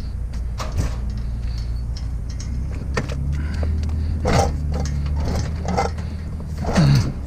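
An engine running steadily in the background, with scattered clanks and rattles of scrap metal being handled, coming more often in the second half.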